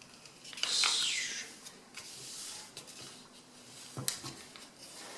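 A folded sheet of A4 paper rustling as it is handled and adjusted by hand. There is a louder rustle of about a second near the start and a sharp tick about four seconds in.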